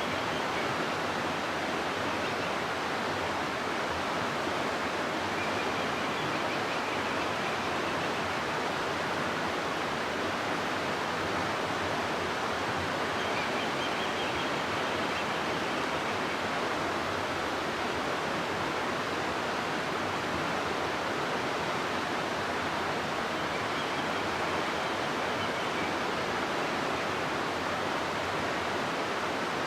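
River water rushing steadily through a rocky gorge: a constant, even rush without a break.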